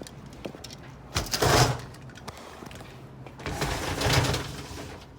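Fire engine equipment compartment doors being slid open or shut: two noisy sliding sounds, a short one about a second in and a longer one a couple of seconds later, over a steady low hum.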